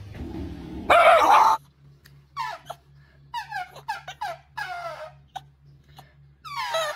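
A French bulldog giving a run of short, squeaky whines, each sliding down in pitch. A loud, harsh burst comes about a second in, before the whines.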